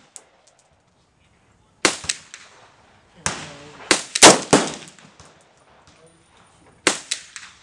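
Rifle gunshots from an AR-15: about five sharp reports with echoing tails, one about two seconds in, three in quick succession near the middle, the loudest among them, and one more near the end.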